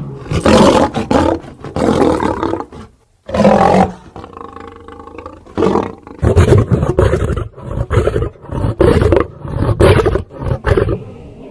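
Big cat roaring and growling, loud. A brief silence about three seconds in; from about six seconds a series of short grunts follows, about two a second.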